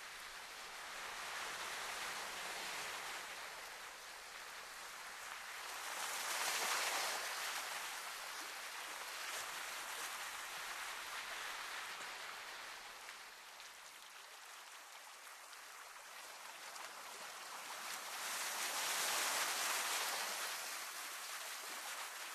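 Sea surf washing against a rocky shore: a hissing wash that slowly swells and fades, loudest twice.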